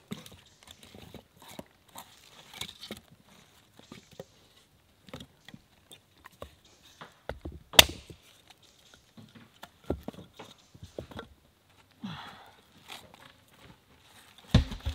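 Split kindling sticks knocking and scraping as they are stacked by hand in a stone fire pit, with light rustling and crinkling of paper. One sharp crack stands out about eight seconds in.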